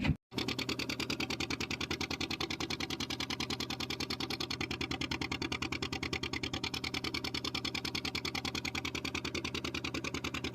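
Fishing boat's engine running steadily, with a fast, even pulsing beat.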